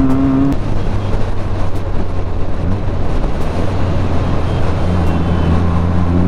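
Benelli TNT 300's parallel-twin engine under way at road speed, with wind rushing over the microphone. Its rising note cuts off about half a second in, leaving mostly wind and a low hum, and a steady engine note returns near the end.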